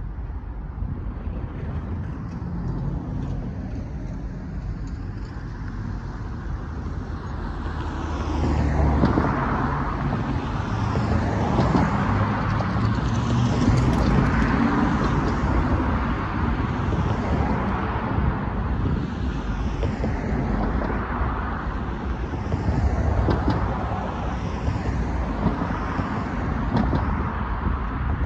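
Road traffic passing: cars and a van drive by one after another, tyre and engine noise swelling and fading with each. It gets busier from about eight seconds in.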